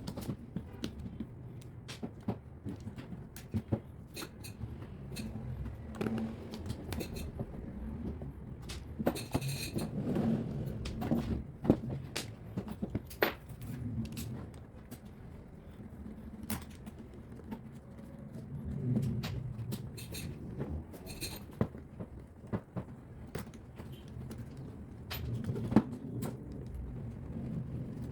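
Handling noise from taking apart a cordless impact drill: scattered clicks and knocks of plastic and metal parts, irregular and unhurried, over a low rumble.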